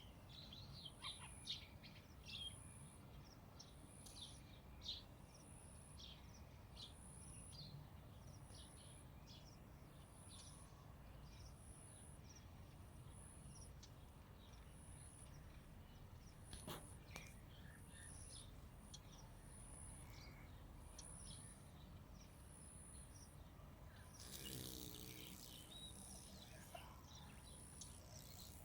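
Faint outdoor ambience: distant birds chirping in short calls, most of them in the first several seconds, over a faint high-pitched pulse that repeats about once a second. A brief rush of noise with a low hum comes about three-quarters of the way through.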